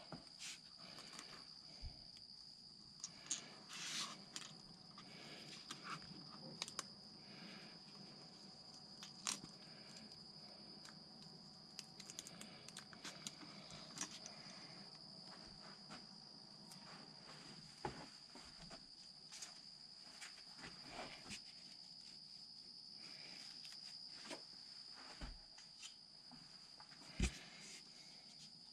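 Faint handling noises: scattered small clicks, taps and light rustles over a steady high-pitched whine, as the masking is peeled off a freshly airbrushed lure.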